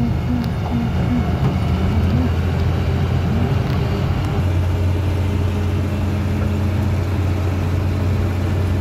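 Engine and road noise heard from inside a moving vehicle's cab at highway speed: a loud, low drone whose pitch wavers in the first few seconds, then settles into a steady, even hum.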